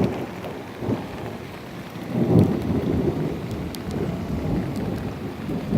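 Rain falling, with an uneven low rumble that swells about two seconds in.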